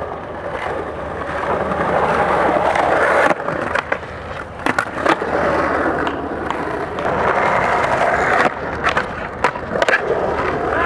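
Skateboard wheels rolling over stone paving tiles, a steady rolling rumble broken by several sharp clacks from the board and wheels.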